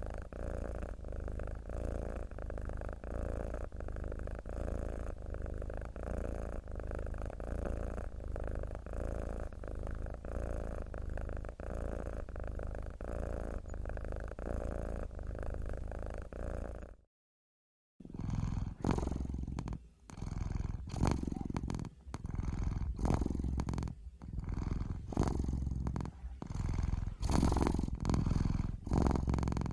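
Domestic cat purring. A steady, even purr is followed by about a second of silence, then a second purr that swells and fades in a repeating rhythm of roughly one swell every second or so.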